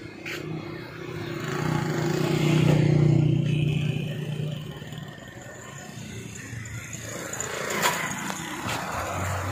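A motor vehicle drives past, its engine hum growing louder to a peak about three seconds in, then fading over the next two seconds. A single sharp click comes near the end.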